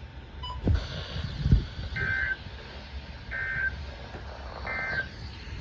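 Three short Emergency Alert System end-of-message data bursts, a harsh two-tone digital screech repeated three times about a second apart, signalling the end of the severe thunderstorm warning broadcast. Before them come two dull low thumps, the second the loudest sound, over a steady low rumble.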